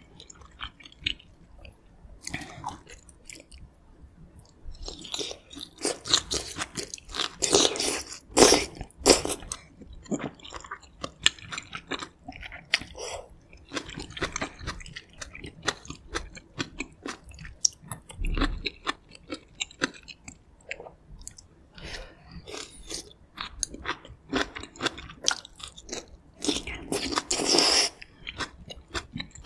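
Close-miked ASMR chewing and biting of pork backbone meat from a gamjatang stew: a steady run of irregular mouth clicks and crunches, with louder bursts of bites about a quarter of the way in and again near the end.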